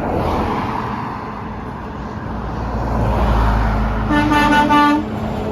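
A truck passing close, its engine and tyre rumble swelling, then one horn blast of about a second on a single steady pitch near the end.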